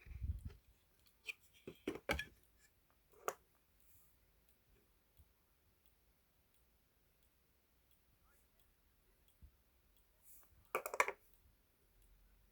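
Synology DS115 NAS making its defective clicking sound: irregular sharp clicks, several in the first few seconds, then a quick burst of clicks about eleven seconds in, with a low thud at the very start.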